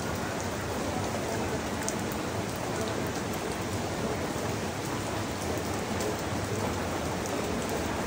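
Steady rain falling on the leaves of a mango tree: an even hiss with scattered sharp drip ticks.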